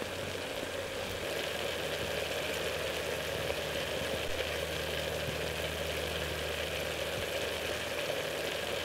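Onions and sausage frying in oil in a billy can on a wood gas stove: a steady sizzle over a low, even hum from the burning stove.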